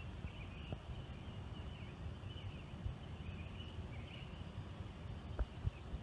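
Faint chirping birds, short rising and falling calls repeating over and over, above a low rumble, with a few soft knocks about a second in and twice near the end.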